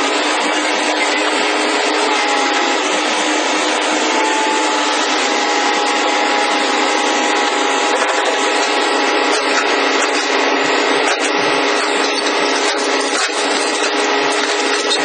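Hydraulic pile-breaking machinery running steadily: a loud, even mechanical noise with a few steady hum tones through it.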